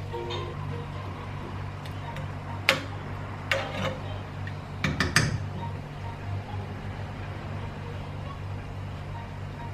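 A few sharp knocks and clinks of kitchen utensils and dishes being handled, in three short clusters over a few seconds, over a steady low hum.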